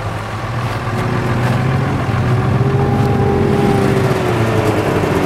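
A vehicle engine idling steadily, its low hum growing louder about two seconds in.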